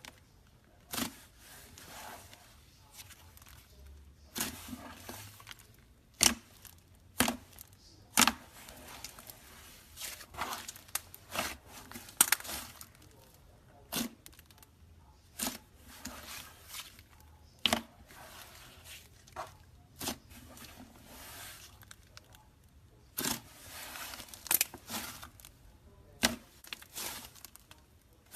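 Slime being squeezed and stretched by hand, with irregular sharp pops and crackles and softer squishing between them.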